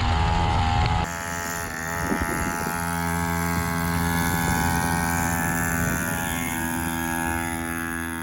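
Engine of a 50 cc mini quad bike running. Close and loud for about the first second, then after an abrupt drop it is heard from farther off, shifting a little in pitch and slowly fading as the quad drives away.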